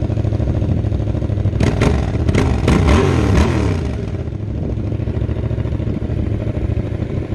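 Yamaha XSR700's 689 cc parallel-twin engine idling through its modified stock exhaust, blipped several times in quick succession about two to three seconds in, the pitch rising and falling with each blip before it settles back to a steady idle.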